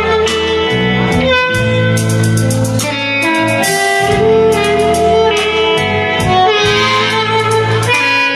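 Live blues band: harmonica playing long held notes over electric guitars, bass and drums.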